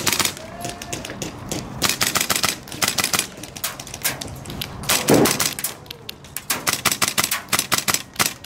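M4-style airsoft rifle firing on full auto in rapid strings of shots: one burst near the start, a longer one about two to three seconds in, and another near the end. A short, louder thud comes about five seconds in.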